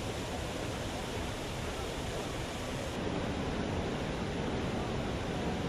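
Steady rushing noise of fast-flowing floodwater, changing character abruptly about three seconds in.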